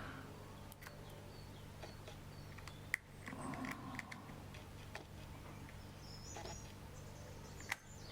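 Faint small clicks and taps of a screwdriver and tiny screws being refitted into a camera body, the sharpest about three seconds in and near the end, over a steady low hum.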